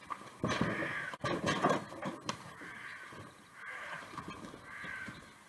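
People scuffling against a wooden shed wall: knocks, bumps and rustling for the first two seconds or so, then three drawn-out cries about a second apart.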